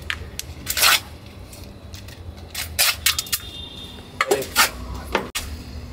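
Stainless steel vessels and utensils clinking and knocking several times at irregular intervals, with a brief scrape about a second in, over a steady low hum.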